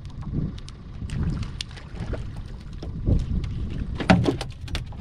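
Gusty wind rumbling on the microphone over water lapping against a small boat's hull, with scattered light clicks and knocks, and a louder knock about four seconds in.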